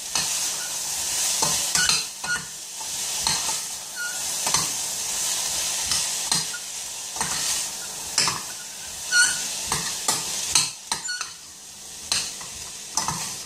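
Chopped onion, garlic, carrot and red pepper sizzling in oil in a stainless steel saucepan while being stirred, the utensil scraping and tapping against the pan at irregular moments throughout.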